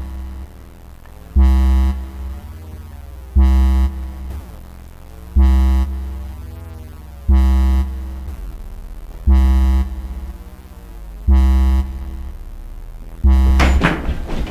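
Synthesizer film score: a low, pulsing synth note with a deep thump, struck seven times at about two-second intervals, each note fading before the next. Near the end a brief noisy crash cuts across it.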